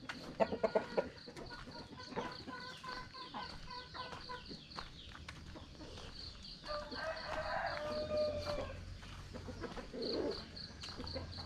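Domestic chickens: quick clucking in the first second, then a rooster crowing in one long call from about seven to nine seconds in. An evenly repeated high chirp runs underneath.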